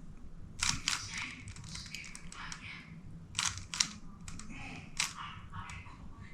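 Rubik's Cube layers being turned by hand: irregular plastic clicks and rattles, with a few sharper clicks just under a second in, around three and a half seconds and at five seconds.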